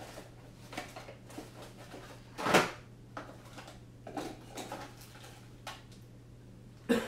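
Rummaging through parts bins and drawers: scattered clicks and knocks, with one louder clatter about two and a half seconds in, over a steady low hum.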